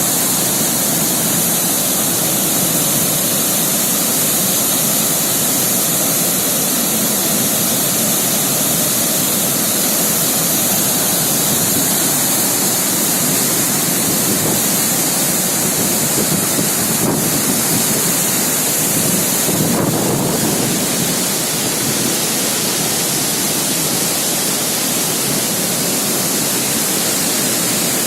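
Water released through a dam's spillway, rushing and crashing in a loud, steady torrent.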